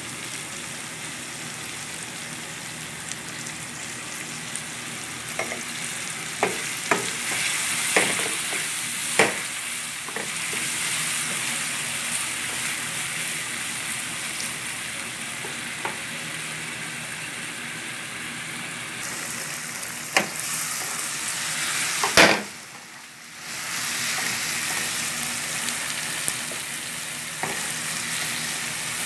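Shrimp and sliced onions sizzling in a nonstick pan, stirred with a wooden spoon. The spoon knocks sharply against the pan several times, in a cluster about six to nine seconds in and again around twenty to twenty-two seconds. The sizzle drops away for about a second shortly after.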